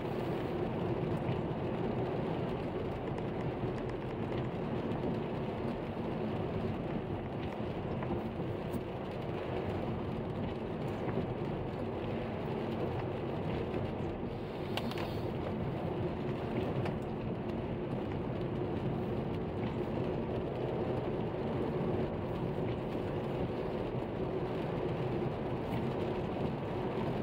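Steady road noise inside a moving car on a wet road in the rain: tyres on wet asphalt and a low steady engine hum.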